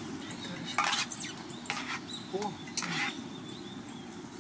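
Utensils scraping and clinking in a pot and bowls of ramen: three short noises about a second apart, over a steady low background noise.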